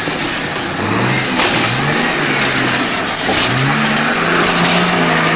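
Nissan GU Patrol off-road truck's engine revving in several short rising bursts as it crawls over logs, then holding steady revs from about four seconds in.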